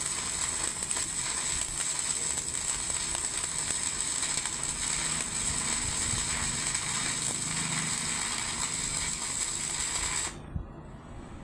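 Electric arc welding on bolt heads: a steady crackling sizzle with a thin high whine over it. It stops abruptly about ten seconds in.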